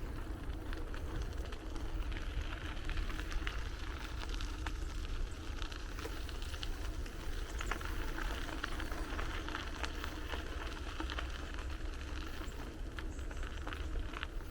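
Bicycle ride: a steady low wind rumble on the microphone over the crackling hiss of tyres rolling along a path, with scattered small clicks.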